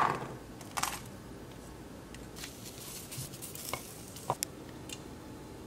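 Whole shallots, garlic cloves and chilies being set down and turned by hand in a dry nonstick frying pan: a knock at the start, another about a second in, then a few faint scattered taps over a low steady background.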